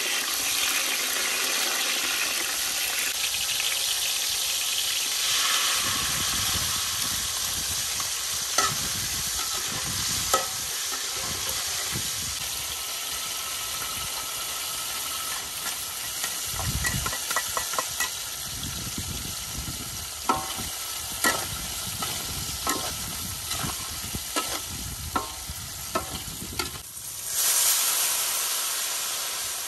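Red chillies and chopped garlic frying in hot oil in a steel wok: a steady sizzle, with a metal spatula and knife scraping and clicking against the wok. Near the end, water poured into the hot wok sets off a sudden louder surge of hissing that then dies down.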